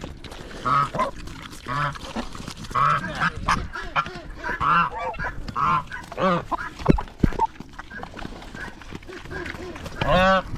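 Geese honking over and over, short calls coming every second or so, with a louder, drawn-out honk near the end.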